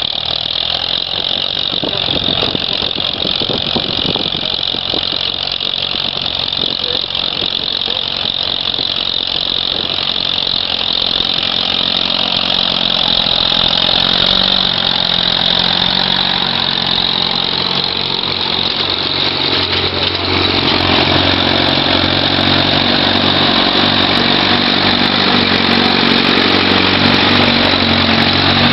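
Vintage farm tractor engines running steadily under load as they pull plows through the field, growing louder in the last third as one comes close.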